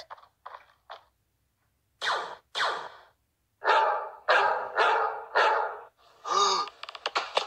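Seven short, loud cries in quick succession, then a lower call whose pitch rises and falls, from a homemade cartoon's soundtrack.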